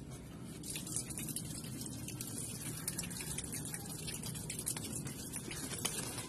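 Luffa (sponge gourd) vine leaves rustling and brushing against the phone as a hand reaches in and grips a gourd: a steady hiss of many small crackles that picks up about a second in.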